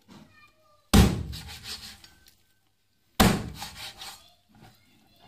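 Two loud chops of a large kitchen knife cutting through raw chicken pieces and striking a plastic cutting board, about two seconds apart.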